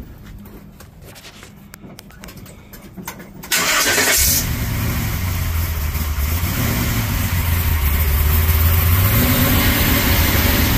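Small-block Chevrolet V8 in a square-body Chevrolet C10 pickup being started: a brief crank about three and a half seconds in, then the engine catches and runs steadily, its pitch rising a little near the end.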